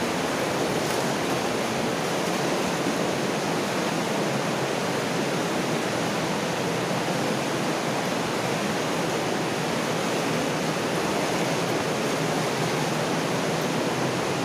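Water rushing steadily along the floor of a stone-lined mine drainage culvert: an even, unbroken rush of flow.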